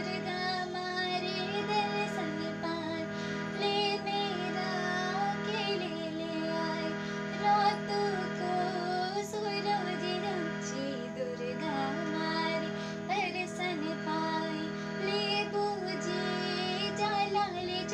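A young woman singing a Jaunsari folk song solo, her melody rising and falling over steady held backing tones.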